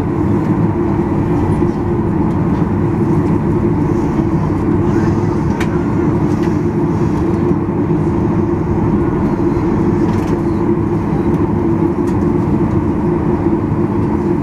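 Steady loud hum and rush inside the cabin of a Boeing 737-800 on the ground, with a few faint clicks about five to six seconds in.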